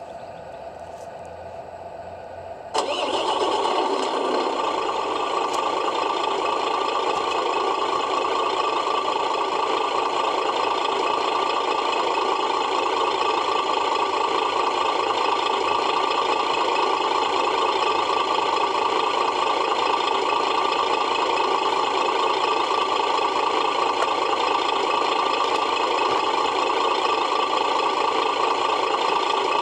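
The electronic sound unit of a Tamiya Mercedes-Benz Actros Gigaspace 6x4 RC truck plays a diesel truck engine starting, cutting in suddenly about three seconds in, then settling into a steady idle. The sound comes through the model's small speaker and has no deep bass.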